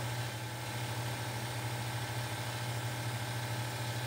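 Air compressor running with a steady low hum, supplying air through a hose into the spark plug hole to hold the valve shut.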